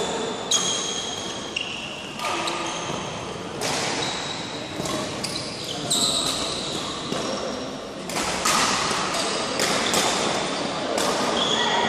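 Badminton rally: sharp racket strikes on the shuttlecock every second or two, with sneakers squeaking briefly on the court floor, echoing in a large hall.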